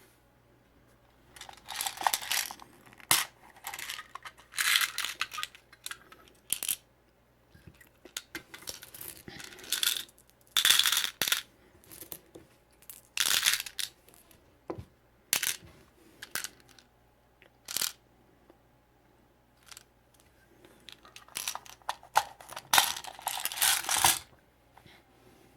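Small toys and surprise eggs being handled and opened: irregular crinkly tearing bursts of wrapper, with sharp clicks and clatters of small hard pieces.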